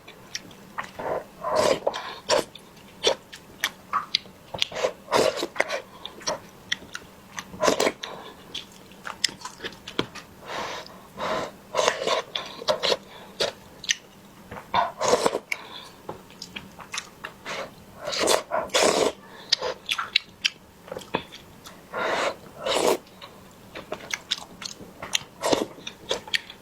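Close-up eating sounds: a person biting and chewing food with irregular wet smacks, clicks and occasional crunches.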